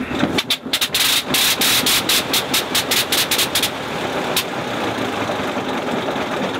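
A Sopwith Pup's engine catches after the propeller is hand-swung and fires in an uneven run of loud bangs for about three seconds, then dies away as the propeller winds down: a start attempt that runs briefly and quits.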